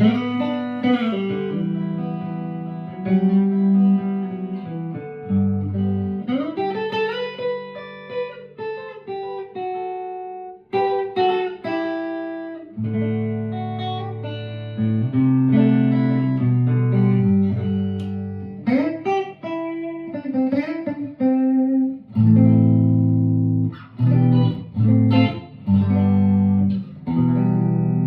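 1958 Guild Aristocrat electric guitar played solo, mixing strummed chords with single-note lines, with a few notes sliding up in pitch.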